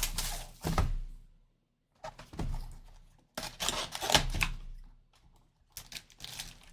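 A cardboard trading-card hobby box being opened and its six packs handled and set down: irregular rustling, scraping and light knocks, with a short pause about a second and a half in.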